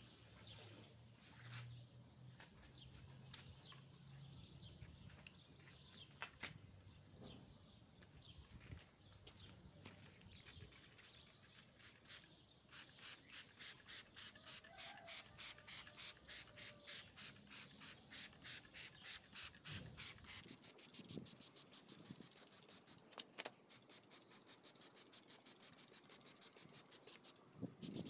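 Faint, rapid pumping of a hand trigger spray bottle misting plants: short squirts about three a second, quickening a little in the last third.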